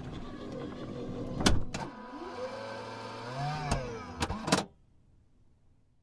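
Car power window motor whirring, then stopping with a loud thunk about a second and a half in as the glass reaches the end of its travel. The motor runs again with its pitch rising and falling, a few sharp clicks near the end, and cuts off suddenly just before five seconds.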